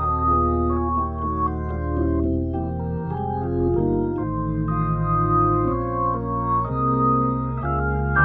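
Viscount Legend Hammond-style drawbar organ playing gospel music: held chords on the manuals that move every half second to a second, over a sustained bass line.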